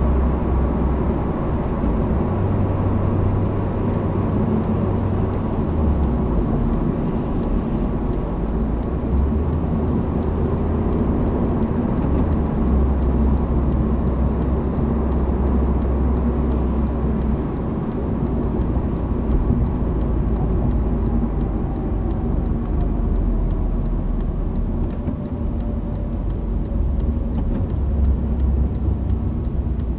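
Honda Civic cabin noise while driving: a steady drone of engine and tyres on the road with a deep low rumble. A faint regular ticking comes in about four seconds in and keeps going.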